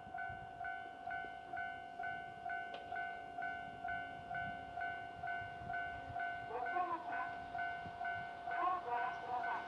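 Railway level-crossing alarm ringing in steady, even strokes about twice a second, warning of an approaching E3-series Yamagata Shinkansen train.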